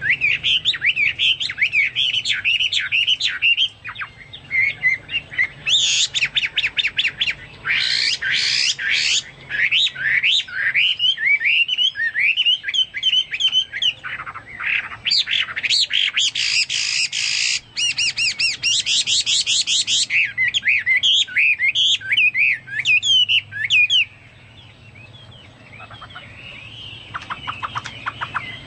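Chinese hwamei singing continuously in a loud, rapid, varied song of quick whistled notes and fast rattling trills, a style that imitates cucak songs. The song drops to a lull a little before the end, then picks up again with a trill.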